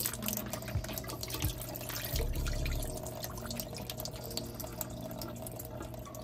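Water splashing and dripping in many small irregular ticks as perch fillets are rinsed and drained, over a steady hum.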